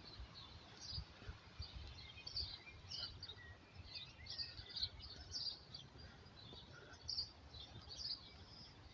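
Several songbirds chirping and trilling in short repeated phrases throughout, over a faint low rumble.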